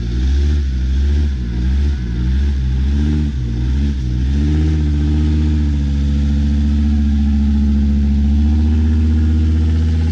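Land Rover 4x4's engine revved in short surges for about four seconds, then held at steady high revs under load.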